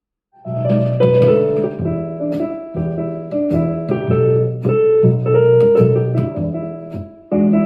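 Piano-led music with a steady bass line, played back through a small portable Bluetooth speaker. It starts after a short gap, and the level jumps suddenly near the end.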